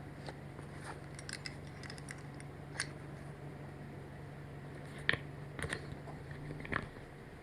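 A few sharp clicks and light rattles of camping gear being handled, with faint rustling, over a low steady hum.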